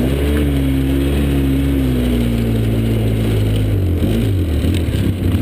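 Side-by-side UTV's engine running under way. Its pitch rises just after the start and sags slowly, then dips and picks up again about four seconds in as the throttle changes.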